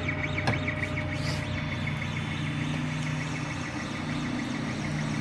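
3D printer running a print at 199% speed: its stepper motors whine with rapidly repeating high chirps as the print head darts back and forth, over a steady low hum. One sharp click about half a second in.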